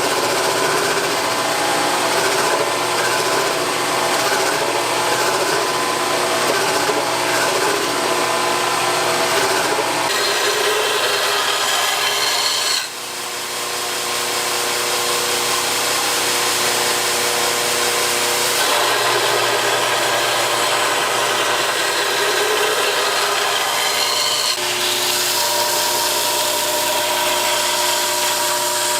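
An abrasive power tool running steadily against the work, grinding or sanding, with the sound changing abruptly every few seconds and a brief drop about 13 seconds in.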